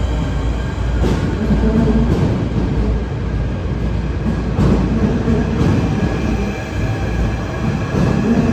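Southeastern Networker electric multiple unit pulling out along the platform: a steady heavy rumble of wheels and running gear, with a hum that comes and goes and a few sharp clacks over rail joints.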